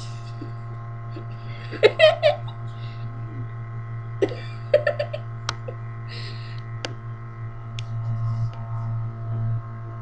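Steady low electrical hum with short, wordless vocal sounds from a girl, about two seconds in and again about four seconds in, and a couple of sharp clicks.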